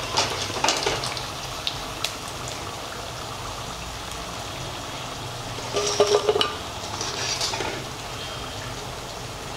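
Battered cauliflower fritters sizzling steadily in hot oil in a kadai. They are fried crisp and being lifted out. A wire mesh strainer clinks and scrapes against the metal pan a few times, loudest in a short burst of metallic clatter about six seconds in.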